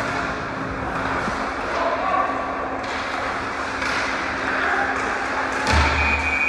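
Overlapping voices of a crowd in a large hall, with a heavy thud about six seconds in.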